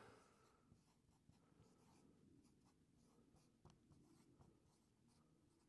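Dry-erase marker writing on a whiteboard, faint: a run of short, scratchy strokes.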